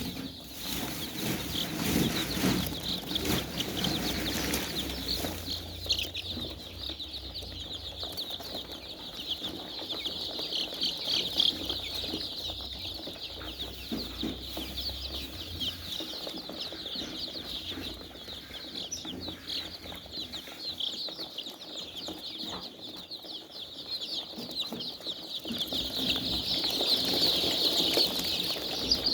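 A flock of chickens in a poultry shed calling together: a dense, continuous chatter of many high peeps and clucks, growing louder near the end.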